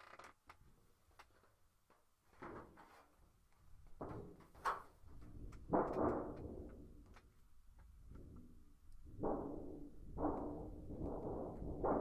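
A thin sheet of metal flexed and shaken by hand as a thunder sheet, giving irregular wobbling, rumbling swells. A few faint rattles at first, then the swells grow louder and come closer together in the last few seconds.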